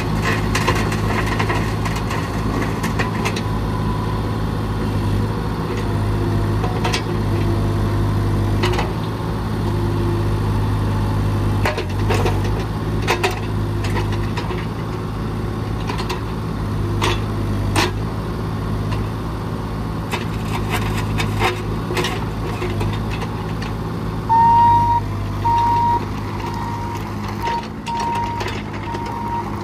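Bobcat E32i mini excavator's diesel engine running steadily, with scattered sharp knocks. About three quarters of the way through, its travel alarm starts beeping in a steady repeating pattern as the machine moves.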